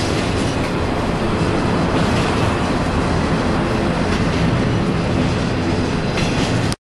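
BNSF freight train of empty intermodal cars rolling past on the grade, a steady rumble and rattle of wheels on rail that cuts off suddenly near the end.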